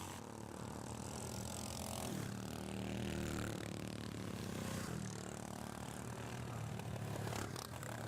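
Small engines of racing lawnmowers running steadily, their pitch shifting a few times as they change speed.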